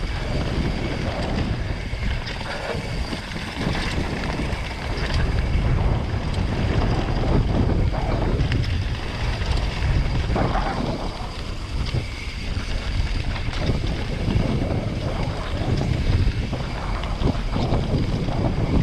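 Mountain bike descending a dirt trail at speed: tyres rumbling over loose dirt and stones, with frequent knocks and rattles from the bike, under steady wind buffeting the action-camera microphone.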